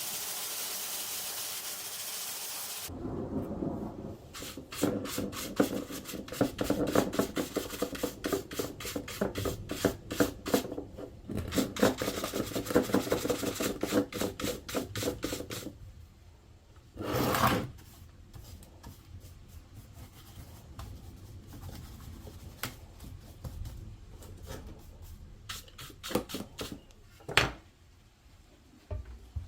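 A steady hiss that stops about three seconds in, then a long run of rapid back-and-forth scrubbing strokes on a hard surface. The scrubbing stops about halfway through, followed by one short louder burst and a few scattered light knocks.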